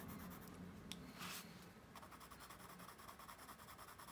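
Derwent Lightfast coloured pencil shading on paper: faint, quick, even scratchy strokes, with a slightly louder stroke just after a second in.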